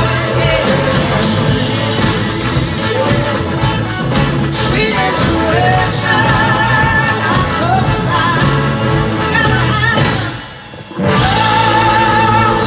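A live band playing a soul-rock song: a woman singing lead over electric guitar, bass and drums. About ten seconds in the music drops away for under a second, then the full band comes back in.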